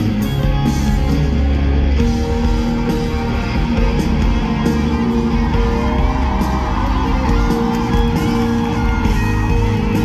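Live concert band music from among the audience: electric guitar over a heavy, steady bass line, with held chord notes.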